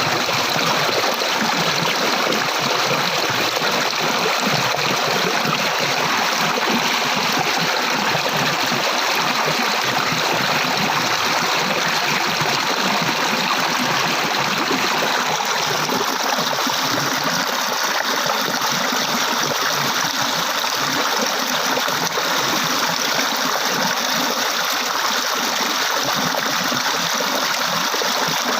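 Water flowing steadily in a stream, a continuous rushing hiss with no breaks.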